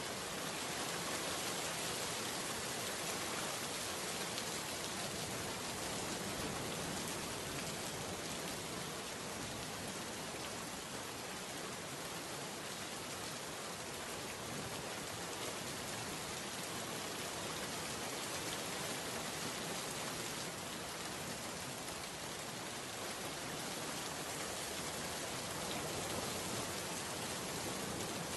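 Steady, even sound of rain, used as the masking track of a subliminal audio that hides affirmations beneath it.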